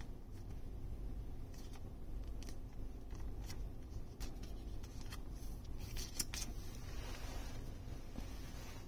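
Faint handling of a trading card and a clear plastic card sleeve: short, light plastic scrapes and ticks here and there, the loudest about six seconds in, over a low steady hum.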